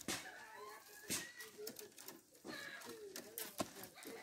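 Dry split cane strips clicking and rustling as they are woven through the spokes of a basket, with a few sharper clicks. Birds call in the background.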